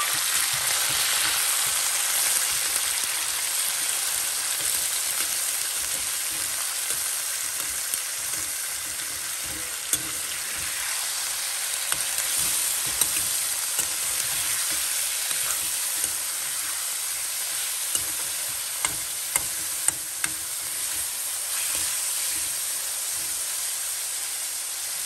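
Par-boiled meat pieces frying in hot oil in a metal kadai, a steady sizzle as the meat's water cooks off, easing a little over time. Occasional sharp clicks and scrapes come from a perforated metal spatula stirring against the pan.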